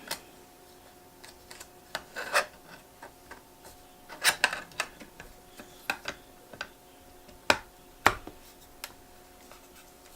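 Hands working small parts and tape inside an open laptop: irregular light clicks and taps with short scratchy rubs, a few sharper clicks standing out. A faint steady hum runs underneath.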